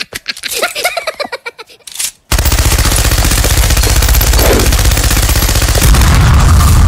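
Machine-gun sound effect firing in a rapid, unbroken stream, starting abruptly about two seconds in. Near the end a deep explosion rumble swells under the gunfire.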